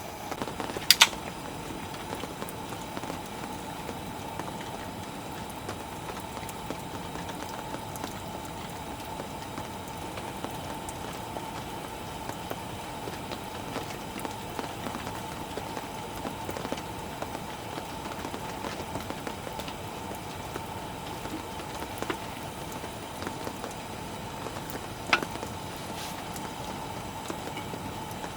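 Steady rain falling, with a few sharp clicks: two in quick succession about a second in and another near the end.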